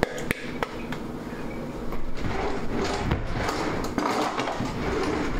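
Kitchen handling noise: a few sharp clinks of glass and dishes in the first second, then from about two seconds in a stretch of irregular clattering and scraping.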